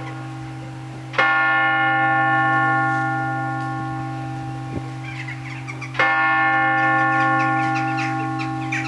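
Large tower bell striking the hour. Two heavy strokes about five seconds apart, each ringing on with a low hum that fades slowly.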